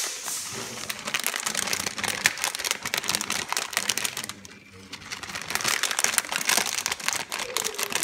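Plastic bag of shredded parmesan crinkling as it is shaken over the dish, in two bouts with a short lull just past halfway.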